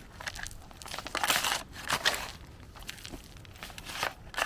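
Shovel blade scraping and crunching into gritty, stony soil, a run of irregular scoops about every half second to second, while a trench is dug by hand for a drainage pipe.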